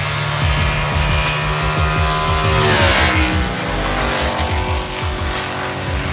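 Race car engine sound over background music, with a stack of engine tones that drops steeply in pitch about two and a half seconds in.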